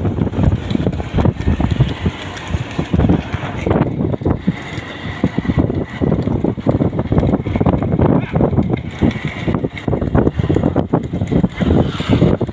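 Wind buffeting the microphone over a dense, irregular rattle and clatter, as of a rekla bullock cart running at speed on a dirt track.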